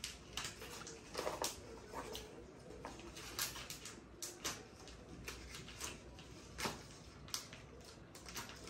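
Packaging wrap rustling and crinkling in short, irregular crackles as a coiled laptop charging cable is unwrapped.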